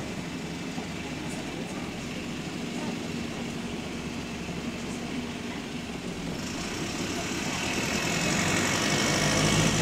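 Bus engine running, heard from inside the passenger cabin, with the clickety-clack of worn engine rods; it grows louder over the last few seconds.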